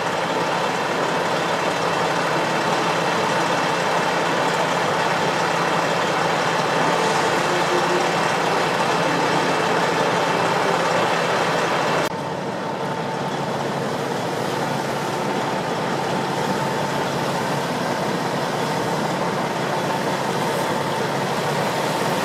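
Steady drone of idling heavy vehicles, with a constant high whine running through it. The sound drops slightly and changes abruptly about halfway through.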